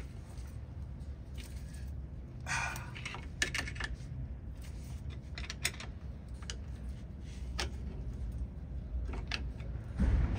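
Scattered light metal clicks and taps, with a brief scrape about two and a half seconds in and a louder knock near the end: a brake part being pried and worked into line by hand.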